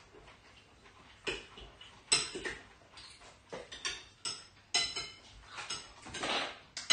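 Cutlery clinking and tapping against plates and bowls during a meal, in irregular sharp clicks with a brief scraping noise just after six seconds.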